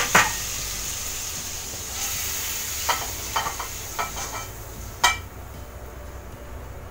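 Shrimp sizzling in hot oil in a wok while a spatula scrapes them out onto a plate, with light knocks and clinks of spatula, wok and plate. The sizzle fades after a sharp knock about five seconds in.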